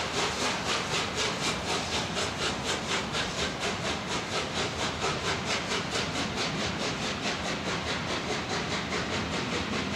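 Peppercorn A1 class three-cylinder steam locomotive No. 60163 Tornado pulling out with its train, with rapid, even exhaust chuffs, about four a second, over a steady rush of steam.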